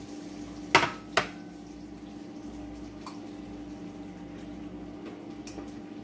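Two sharp clanks of kitchenware close together about a second in, then two fainter clicks later, over a steady hum and a faint, even sizzle of egg-dipped bread frying on a hot pan.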